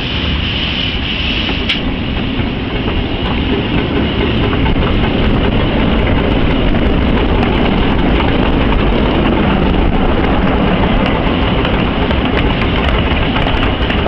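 Miniature steam locomotive running under load, heard from beside its cab, with many short clicks of the wheels on the track, labouring as it climbs the main line. A high hiss stops about two seconds in.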